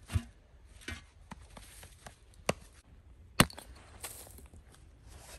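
Sharp wooden knocks and cracks as firewood and kindling are worked by hand with a knife and hatchet: a dull thump at the start, a few lighter knocks, then two crisp chops about two and a half and three and a half seconds in, the second the loudest.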